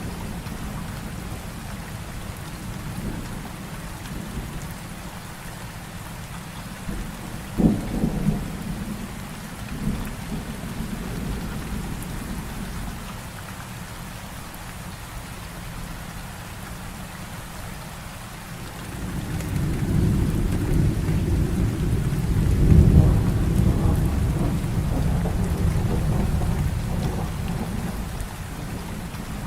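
Heavy rain falling steadily, with thunder: a sharp crack about eight seconds in, then a long, low rolling rumble that swells about two-thirds of the way through and dies away near the end.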